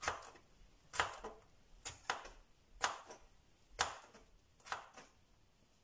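Kitchen knife slicing a cucumber on a cutting board: six sharp knocks about a second apart as the blade goes through and strikes the board.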